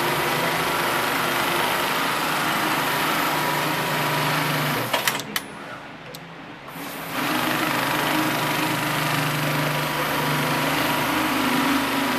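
JUKI PLK-G6030 computer-controlled pattern sewing machine stitching at a steady high speed. About five seconds in it stops with a few sharp clicks, then starts sewing again about two seconds later.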